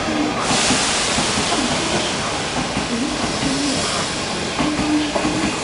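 A train at the platform lets out a sudden loud hiss of compressed air about half a second in. The hiss is strongest for a second or two, then eases into a steady rushing noise.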